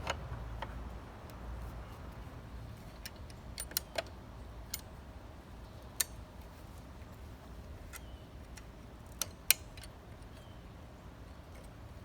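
Scattered small metallic clicks and taps, about a dozen spread irregularly with the sharpest about nine and a half seconds in: hand tools and small metal parts being handled during a repair.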